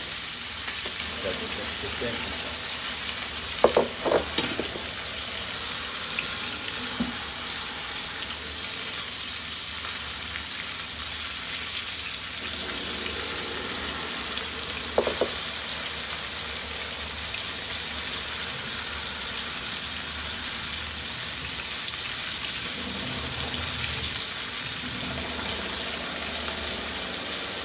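Lemon sole frying in pans, a steady sizzle. A few short knocks come about four seconds in and once more around fifteen seconds.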